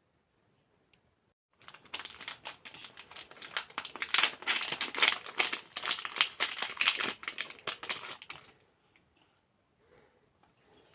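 Plastic packaging crinkling and rustling as it is handled, a dense run of rapid crackles that starts about a second and a half in and stops abruptly about seven seconds later.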